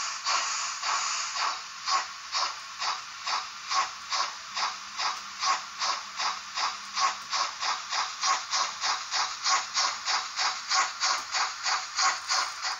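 Märklin model steam locomotive's sound decoder playing steam chuffs through its small loudspeaker. The chuffs keep an even beat that picks up from about two to about three a second as the locomotive runs.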